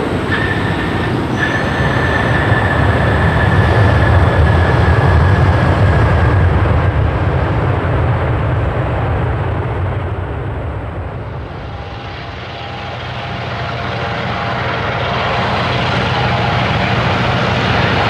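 Aircraft engine noise passing close: a loud low rumble with a steady high whine swells, fades away to a low point about two-thirds of the way through, then builds again with new tones as another engine sound approaches.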